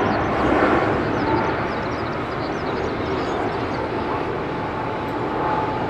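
Jet engine noise from a Boeing 787-8's GEnx turbofans at takeoff power: a broad, steady rush that slowly fades as the airliner climbs away.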